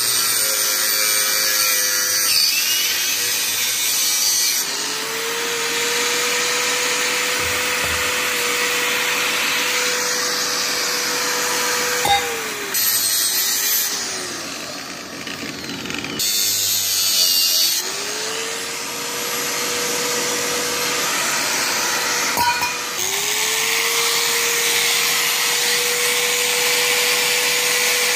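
Bosch GWS 600 angle grinder cutting metal with an abrasive disc: a steady motor whine over harsh grinding noise. The motor spins up, runs, and winds down about twelve seconds in, then starts up again twice, with a quieter pause in between.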